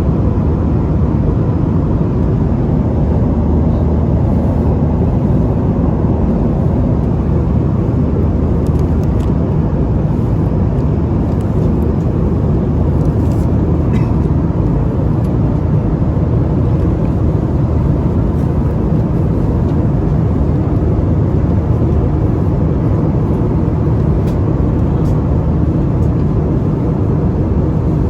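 Steady low roar of engine and airflow noise inside an Airbus A320 airliner cabin in flight, with a faint steady hum and a few faint clicks.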